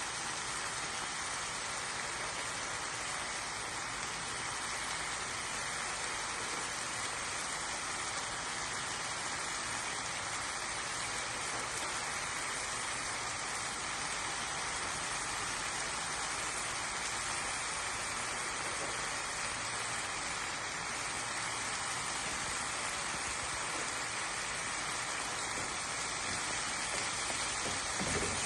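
Food sizzling steadily in a hot frying pan, with a small knock just before the end.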